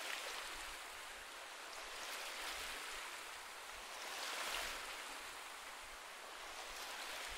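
Ocean waves washing on a shore: a low, steady hiss that swells twice, about two and a half and four and a half seconds in.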